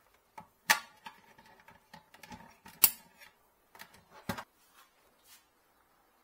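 A few sharp clicks and knocks of hard plastic being handled, three of them louder than the rest, as cable connectors are worked at a set-top box.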